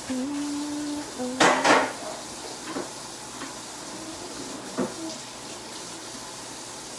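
Kitchen cookware and utensils clattering: a loud double clank about one and a half seconds in, then a few lighter knocks. A short steady tone sounds just before the first clank.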